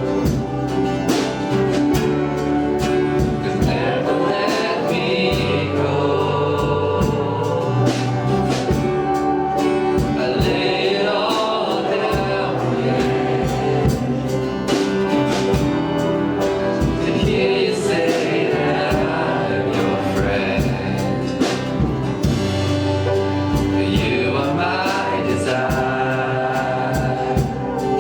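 Worship song: voices singing together over instrumental accompaniment with a steady beat.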